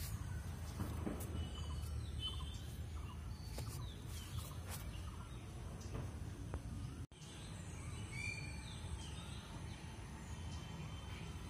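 Outdoor ambience: birds chirping and calling in short scattered notes over a steady low background rumble, with a brief dropout about seven seconds in.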